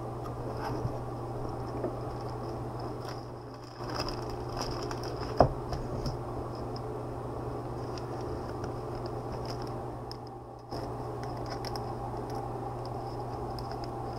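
Steady low background hum with faint scraping and clicking from a trading card handled in gloved hands, and one sharp click about five seconds in.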